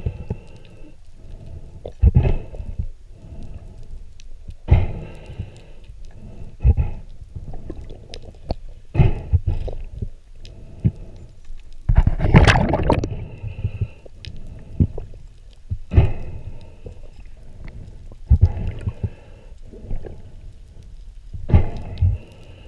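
Underwater recording of water moving around a diver's camera: a muffled rumble with a rush every two to three seconds and a longer, louder rush about twelve seconds in.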